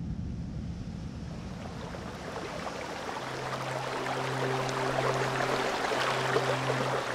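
Rushing stream water splashing over rocks, growing louder. A deep rumble dies away in the first second or two, and a low held musical drone comes in about three seconds in.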